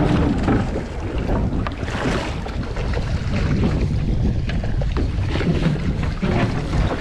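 Wind buffeting the microphone aboard a small fishing boat at sea, over a steady wash of water and boat noise, with a few light knocks.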